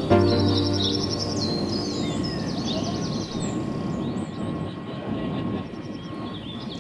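Background music with birdsong: a chord sounds at the start and fades, while bird chirps continue over a steady rushing noise.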